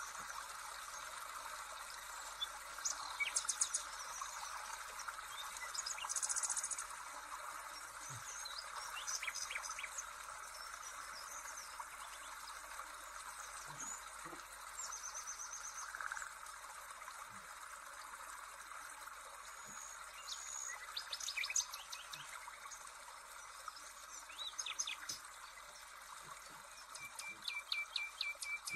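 Several birds chirping, with quick runs of trilled notes every few seconds, over a steady soft hiss.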